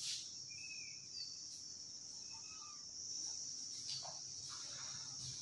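Faint, steady high-pitched drone of insects, with a few short faint chirps scattered through it and a soft click at the very start.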